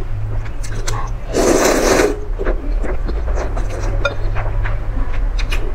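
A person slurping noodles from a broth, with one loud slurp lasting under a second about a second and a half in, among wet chewing and mouth clicks over a steady low hum.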